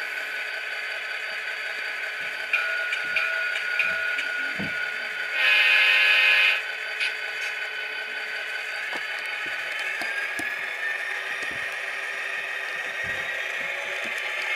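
Sound-decoder diesel sound of an EMD 567D engine, played through the small speakers of HO-scale Atlas SD35 model locomotives, running steadily with a horn blast of about a second some five seconds in. A slight rattle comes with it, which the owner puts down to the PRR unit's speaker volume being too high for its shell.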